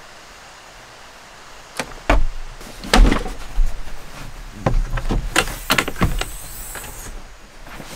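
Hinged bed-platform panel in a car-camping conversion being handled and lifted open on its gas strut: a run of knocks and thumps starting about two seconds in, the loudest about three seconds in, with a brief rustle near the end.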